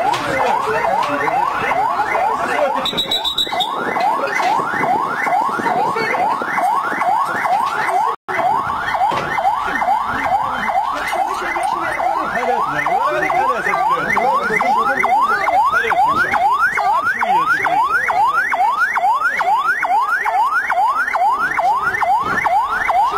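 Emergency-vehicle siren in yelp mode: a fast, even train of rising sweeps, about three a second. It breaks off for a split second about eight seconds in.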